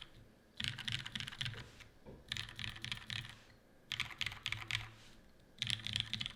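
Typing on a GAF x TGR 910 mechanical keyboard with lubed and filmed Cherry MX Black linear switches in an aluminum top-mount plate, under GMK keycaps. Four short runs of fast keystrokes, each about a second long, separated by brief pauses.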